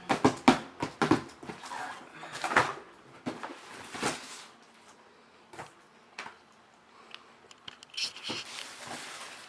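Cardboard boxes being handled and knocked together: a quick run of hollow knocks and rustles, then scattered taps, and a longer rasping scrape near the end.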